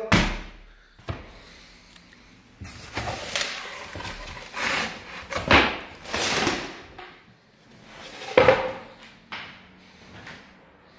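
Handling noise: a sharp knock at the start, then irregular rustling and scraping bursts, loudest about two thirds of the way in.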